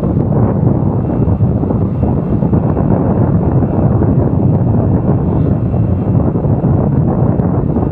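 Wind buffeting a motorcycle rider's camera microphone at road speed, a loud steady rumble with no breaks.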